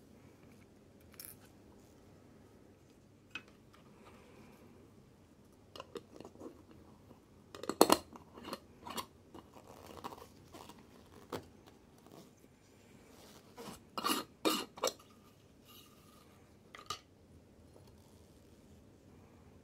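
Scattered clinks, knocks and scrapes of a metal screw lid being turned on and off a glass jar, with small steel watch parts rattling in the jar. The loudest knocks come about eight seconds in, and another cluster comes around fourteen to fifteen seconds in.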